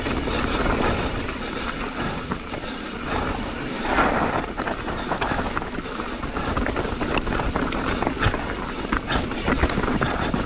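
Mountain bike descending a rocky trail at speed: tyres rolling over loose rock and dirt, with frequent rattles and knocks from the bike, under steady wind noise on the microphone.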